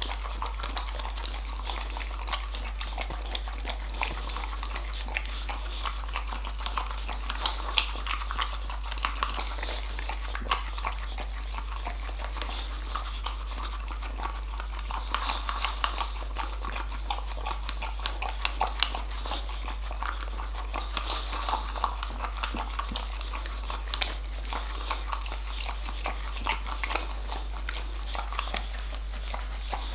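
Boxer dog licking and slurping yoghurt remains out of a plastic cup: a continuous, irregular run of wet tongue laps and smacks, with small clicks against the plastic.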